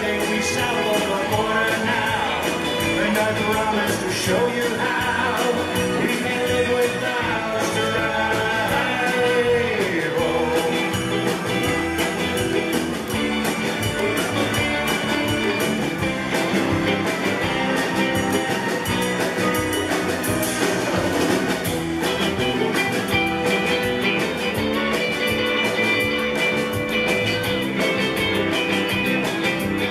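A live rock band plays an instrumental break with electric guitars, keyboard, drum kit and hand percussion. A lead line on top slides up and down in pitch.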